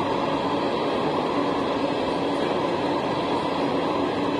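CSX freight train's hopper cars rolling past at a grade crossing: a steady rumble of wheels on rail.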